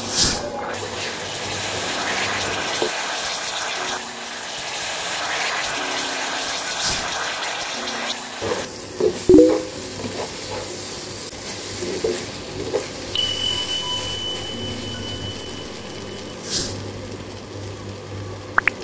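Egg, onions and parsley sizzling in hot oil in a frying pan, a steady hiss, with a few sharp knocks of the spatula against the pan about halfway through.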